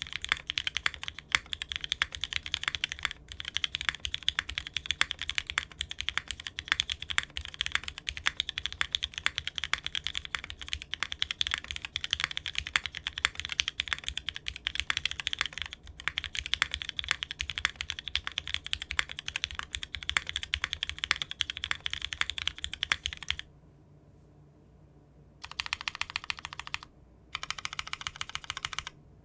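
Mechanical keyboard fitted with Cherry-profile keycaps being typed on fast and steadily. The typing stops about 23 seconds in, and after a short pause two brief bursts of typing follow near the end.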